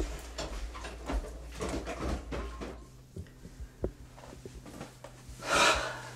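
Footsteps and light knocks, then a short rustling rush near the end as someone sits down on a bed.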